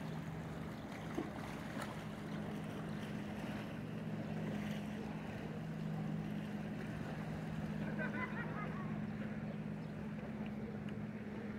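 A steady low motor hum over a faint wash of wind and water.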